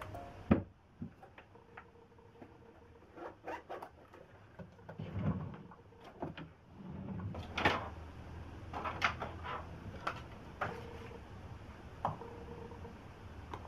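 Knocks, clicks and light rustling from household objects being handled and set down on furniture, with a drawer of a chest of drawers sliding open or shut partway through.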